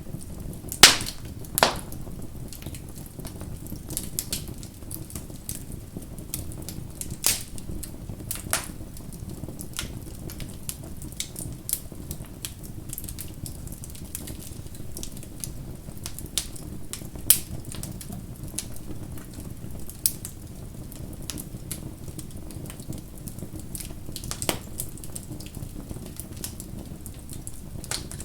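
Wood fire crackling: a steady low rumble of the flames with scattered sharp snaps and pops, a few of them louder.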